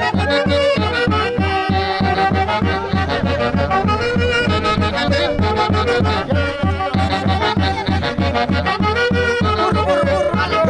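Traditional festive band music with a steady beat of about three drum strokes a second under wind or reed instruments carrying a sustained melody.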